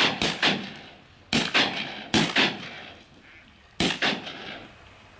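Several shotguns firing at ducks overhead in rapid, overlapping volleys: about nine or ten sharp shots in quick clusters, each trailing off into an echo, with the last pair a little under four seconds in.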